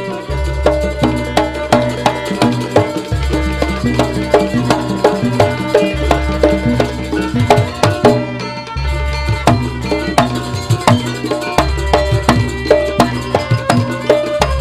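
Live Banyuwangi jaranan gamelan playing for a barong dance: drums beating a fast, busy rhythm over ringing struck metal percussion, with a deep gong tone renewed about every three seconds.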